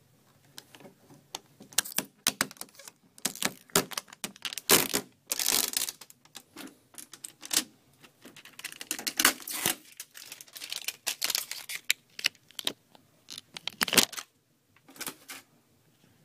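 Tape being pulled off a new dehumidifier's plastic body, with the plastic handled: irregular crackling, tearing and clicking sounds with short pauses between them.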